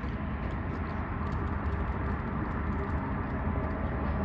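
Steady outdoor background noise with a low rumble, and a few faint ticks over it.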